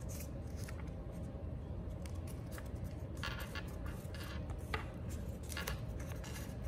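Construction paper rustling and rubbing against a cardboard toilet paper roll as it is wrapped and pressed around it by hand. The handling noise comes in a few short bursts from about three seconds in, over a steady low room hum.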